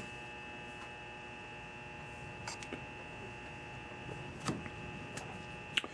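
Steady electrical hum made of several fixed tones, with a few faint light clicks or taps about two and a half seconds in, about four and a half seconds in, and just before the end.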